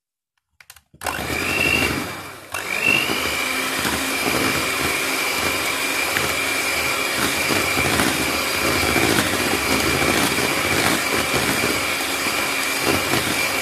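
Electric hand mixer running with its twin beaters in cake batter: it starts about a second in, drops out briefly near two and a half seconds and starts again, then runs steadily with a high motor whine.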